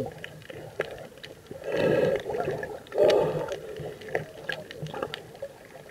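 Underwater recording of snorkelers swimming: muffled water sloshing and bubbling from kicking and splashing, with two louder gurgling surges about two and three seconds in and scattered sharp clicks.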